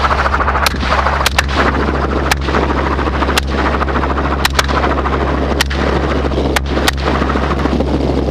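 Semi-automatic AR-style rifles firing from an open helicopter door, about ten shots at uneven intervals, some in quick pairs. Under the shots runs the steady drone of the Robinson 44 helicopter's engine and rotor, with wind rushing past the microphone.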